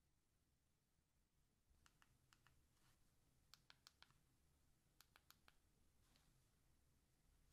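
Faint, sharp clicks of an iPhone 13 mini's side buttons being pressed, in three quick runs of about four clicks each.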